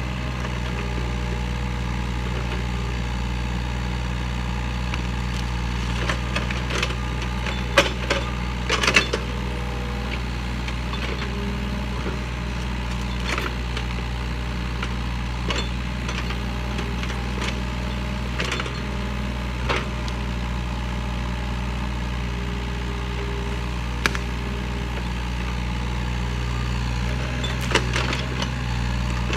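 Yanmar excavator's diesel engine running steadily while the bucket digs out and lifts a tree stump, with scattered sharp knocks every few seconds.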